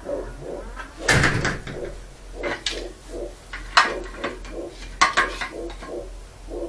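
Metal engine parts and tools clanking and knocking on a workbench as a small single-cylinder walk-behind tractor engine is worked on by hand. The loudest clatter comes about a second in, with sharp knocks near four and five seconds.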